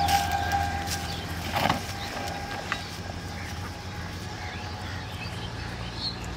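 A steady low motor hum, with a high whine over it that fades over the first few seconds, and a single knock a little under two seconds in.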